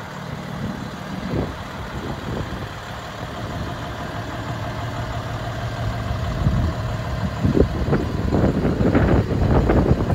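Cummins diesel engine of a fire pumper truck idling steadily. About seven and a half seconds in, louder, uneven noise rises over it.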